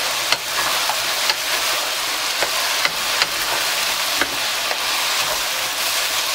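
Pork ribs and diced vegetables sizzling in a wok as they are stir-fried with a wooden spatula, a steady hiss with a few sharp knocks and scrapes of the spatula against the pan.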